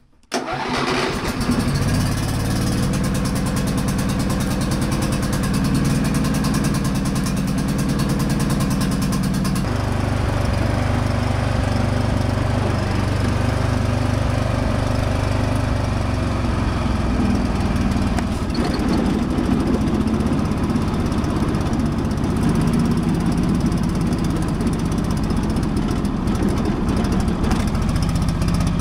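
John Deere L120 riding mower engine starting almost at once, then running steadily while the mower is driven, its note shifting about ten seconds in. It runs a little rough, which the owner puts down to fuel starvation.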